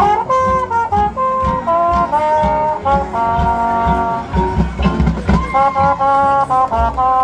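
High school marching band playing: brass chords that change every half second to a second, over repeated low drum hits.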